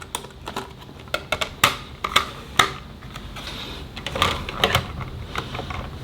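Plastic paper cassette of a Canon Selphy CP1200 photo printer being handled and loaded with photo paper: a run of irregular clicks, taps and knocks, the louder ones in two clusters, the first about a second and a half to two and a half seconds in and the second around four to five seconds in.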